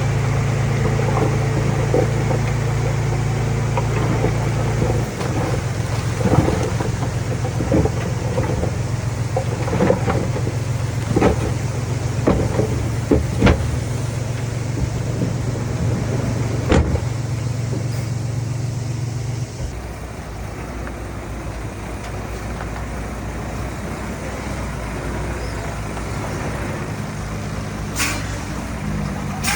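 Heavy earthmoving machine's diesel engine running, with a string of sharp metallic clanks and knocks through the middle. The engine note drops a few seconds in and drops again about two-thirds of the way through.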